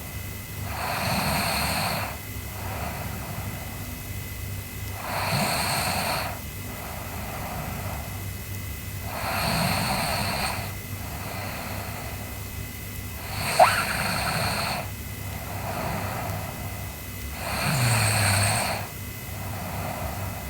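A sleeping girl snoring: five loud snores about every four seconds, with softer breaths between them. A brief sharp squeak about two-thirds of the way through.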